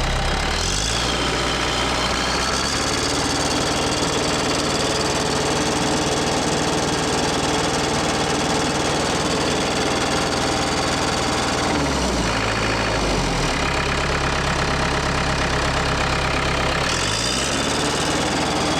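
Case 430 skid steer's four-cylinder diesel engine revved to full throttle with a knock and a miss. The revs dip and recover about two thirds of the way through, then drop near the end. The knock comes only when it is revved out, which the owner takes for a stuck-open injector overfueling the engine.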